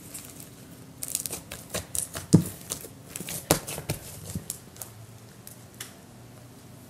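White slime with small beads mixed in, squished and pressed by hand, crackling and popping in a quick run of clicks. The clicks start about a second in, are loudest in the middle, and thin out near the end.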